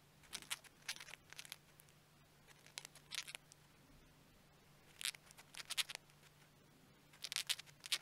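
Cockatiel grinding its beak: four short bouts of rapid, scratchy clicking, the sound a drowsy, content cockatiel makes as it settles to sleep.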